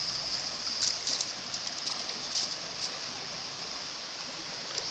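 Shallow rocky river rushing over stones, a steady wash of flowing water, with a few brief sharper sounds about one and two and a half seconds in.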